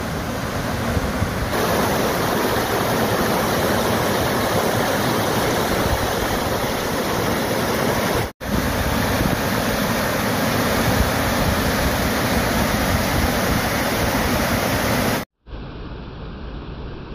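Rainwater runoff rushing down a small woodland valley like a waterfall, a loud, steady rush of water. It breaks off for a moment about eight seconds in, and near the end it cuts to a quieter, duller rush.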